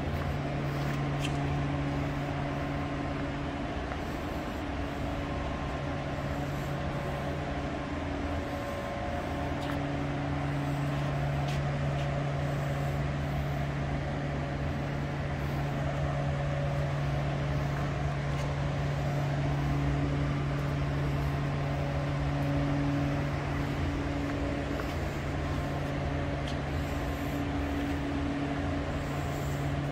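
Steady low mechanical hum with a few fainter steady tones above it, unchanging for the whole stretch.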